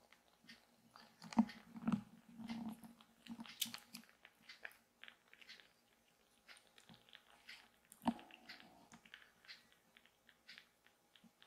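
Tiny wet clicks and smacks of newborn kittens mouthing and suckling after a milk feed, with a few louder bumps about a second and a half in, around two seconds in and about eight seconds in.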